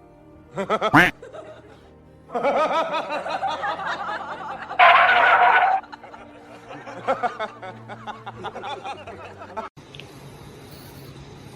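Background music with bursts of people laughing and snickering.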